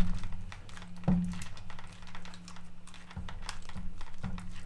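Small hand screwdriver driving a housing screw back into a cordless screwdriver's case: a series of light, irregular clicks and scrapes from the tool and screw.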